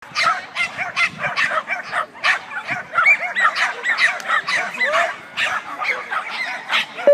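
Flyball dogs barking rapidly and without a break, several short barks a second overlapping one another.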